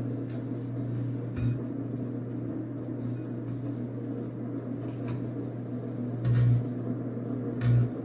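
Microwave oven running with its steady low transformer hum while LED light bulbs inside arc, giving a few sharp crackles. The hum swells louder twice near the end.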